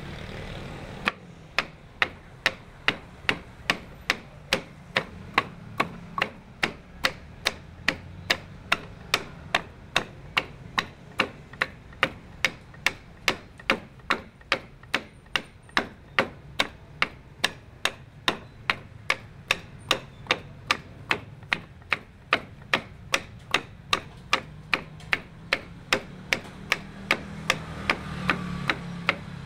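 Wooden pestle pounding fruit, chilli and spices in a wooden mortar: steady, even knocks about two to three a second, starting about a second in.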